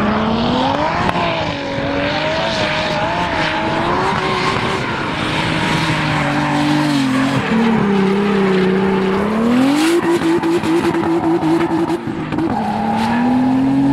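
Drift car's engine revving up and down through a drift, over the screech of sliding tyres. Around the middle the revs hold high with a rapid stutter for about two seconds, then drop and climb again.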